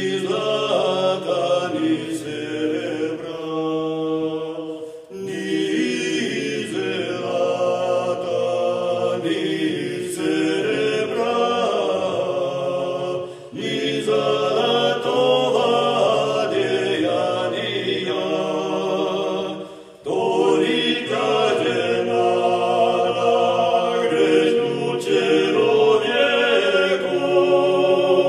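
Three men's voices singing a chant together in harmony, in long sustained phrases with three brief breaks for breath.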